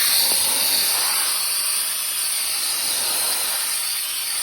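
Car-wash compressed-air hose hissing steadily as air is blown through a PS5 console to clear out dust.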